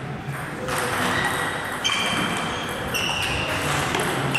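Table tennis ball struck by paddles and bouncing on the table as a rally gets under way, with a few sharp, ringing clicks from about two seconds in.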